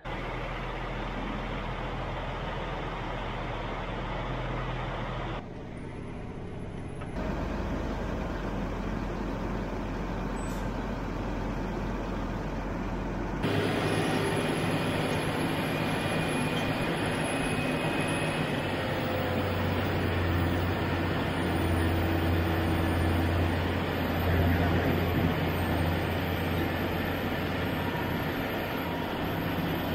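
Vehicle engine running, first in a few short edited stretches. From about 13 seconds in, a louder, steady diesel engine of a John Deere 9230 four-wheel-drive tractor runs as the tractor drives over a silage pile, packing it.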